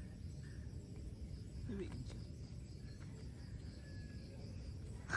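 Quiet outdoor ambience: a steady low rumble, faint insects chirping, and a short voice about two seconds in.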